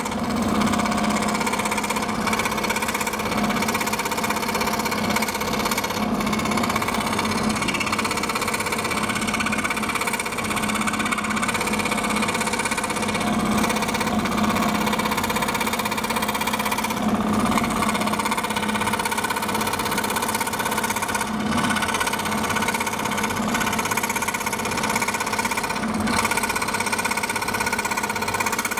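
Scroll saw running steadily, its reciprocating blade cutting through a sheet of acrylic as the workpiece is fed by hand along a traced profile.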